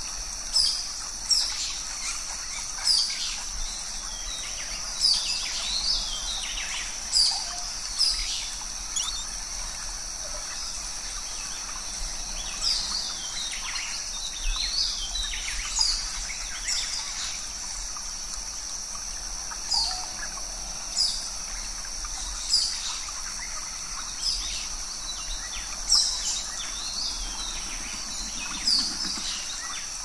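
Birds chirping in forest, short sharp calls that fall in pitch, repeating every second or so, over a steady high-pitched hum.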